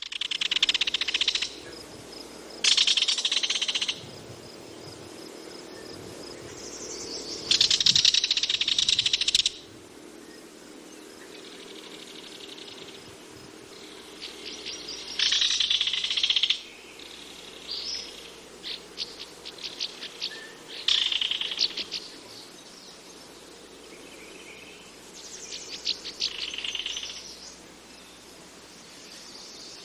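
Kingfisher calling in loud bursts of rapid, pulsed trilling notes, each burst a second or two long, repeated about seven times with pauses between, over a faint steady background hum.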